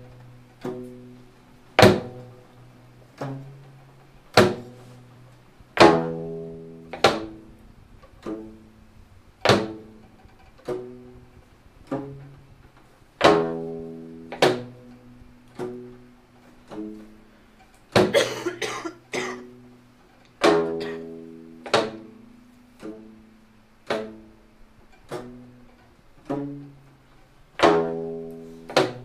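Geomungo, the Korean fretted zither, played solo: single low notes struck with a stick, each with a sharp attack that rings and fades, spaced a second or more apart, with a quick cluster of strokes a little past the middle.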